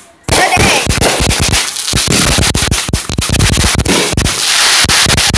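Fireworks going off in a rapid, irregular string of bangs and crackles, with a burst of crackling stars near the end.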